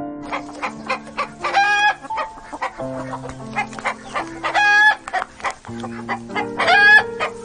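Chickens clucking in quick short calls, with three louder drawn-out calls about three seconds apart, over background music with held notes.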